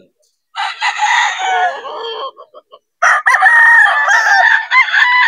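Gamecock roosters crowing. One crow starts about half a second in and lasts about a second and a half; a louder, longer crow begins about three seconds in.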